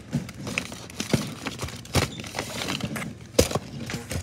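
Irregular knocks and clothing rustle close to the microphone, from a child moving against the phone among large toy building blocks; the loudest knock comes a little past three seconds in.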